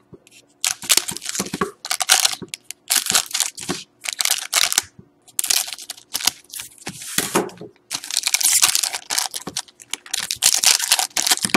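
Foil wrappers of Panini Certified hockey card packs crinkling and rustling in irregular bursts as the packs are handled and cut open with scissors.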